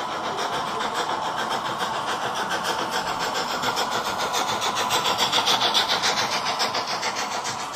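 Model steam locomotive and its coaches running past with a quick, even beat of about five pulses a second. The sound grows to its loudest as the train passes close, about six seconds in, then fades.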